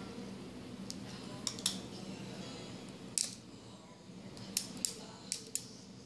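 Orthodontic metal hand instruments snipping and clicking at braces wires and ligature ties: about eight short, sharp snips, some in quick pairs.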